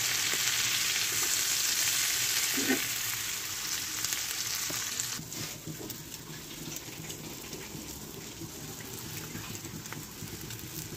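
Food sizzling as it fries in hot oil on a flat griddle, with a fork now and then stirring the pieces. The sizzle drops to a softer frying hiss about five seconds in.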